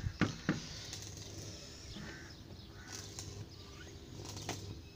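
A car's steel wheel with its tyre being handled and fitted back onto the hub: a couple of sharp knocks in the first half-second, then quieter bumps and scrapes.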